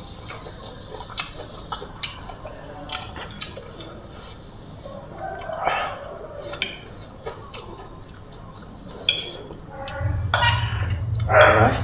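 Close-miked eating: a fork clicking and scraping against a plate, with chewing and slurping of rice noodles, shrimp and water spinach in a thin sauce. About ten seconds in a low steady hum starts, and just before the end a short loud voice-like sound cuts in.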